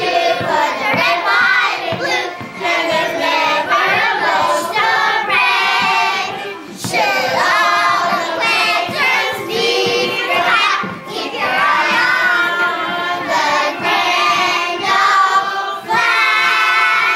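A group of young children singing together, holding a long note near the end.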